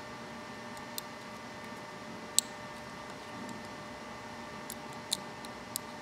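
Terminal pins clicking as they seat into a plastic Delphi flex-fuel sensor connector housing: a few small, sharp clicks spread out, the loudest about two and a half seconds in.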